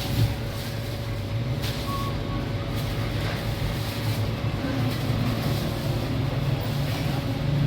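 A motor vehicle's engine running steadily, a continuous low drone with a faint steady hum above it.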